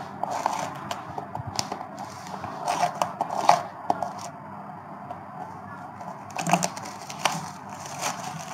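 Clear plastic parcel wrap being cut with a small knife and pulled off a cardboard box: irregular scratching, crinkling and tearing of the plastic, in two busier spells with the loudest snap about three and a half seconds in.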